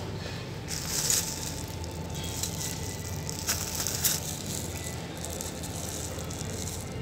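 Rustling and crackling handling noise close to a phone's microphone, with a couple of soft clicks, over the steady low hum of a large store's ventilation.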